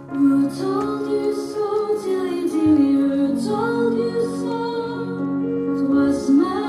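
Slow, gentle music in a lullaby style with a female singing voice carrying the melody.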